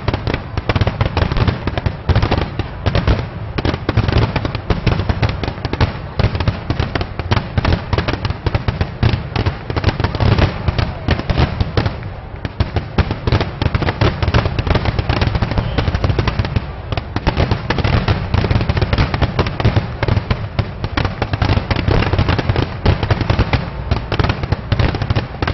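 Fireworks going off in rapid, continuous succession: dense crackling and popping over a heavy low booming rumble, with no pause.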